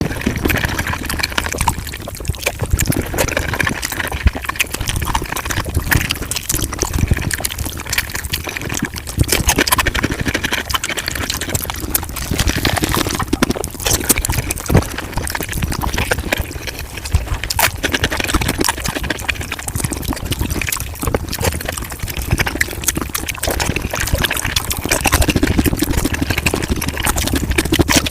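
Close-miked chewing and wet mouth sounds of someone eating whole chicken, sped up about five times, so the bites and smacks run together into a dense, continuous run of wet clicks.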